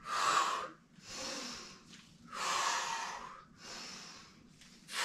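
A woman's heavy breathing under exercise exertion: five forceful breaths in a steady rhythm, the louder exhales alternating with weaker inhales.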